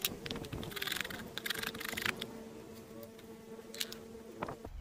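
A hand blade shaving a wooden axe handle, two scraping cuts in the first two seconds. Then a flying insect buzzes with a steady hum, which stops just before the end.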